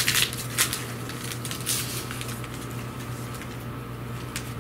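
A few short rustles of paper being handled, near the start and again about a second and a half in, over a steady low hum.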